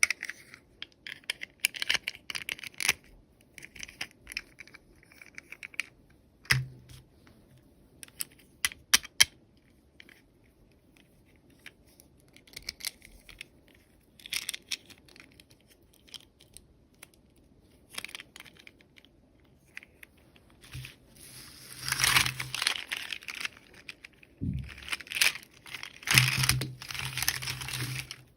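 Toy packaging being handled and opened by hand: scattered sharp clicks and taps of small plastic pieces, then a longer stretch of crinkling and tearing wrapping in the last several seconds.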